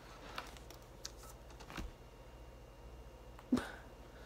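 Faint, scattered clicks of Wii Remote buttons being pressed, with a short soft knock about three and a half seconds in, over a low steady hum.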